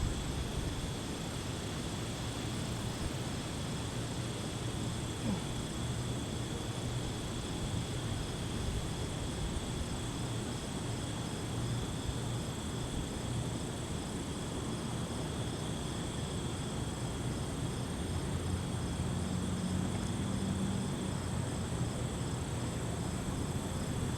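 Crickets and other night insects calling steadily, in a constant high, pulsing trill, over a steady low rumble.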